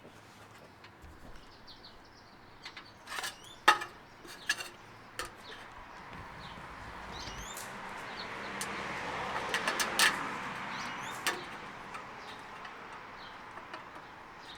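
Aluminum trim coil being cut along a marked line: a few sharp clicks and a rising rustling hiss of the sheet that peaks about two-thirds of the way through, then eases off. Birds chirp now and then in the background.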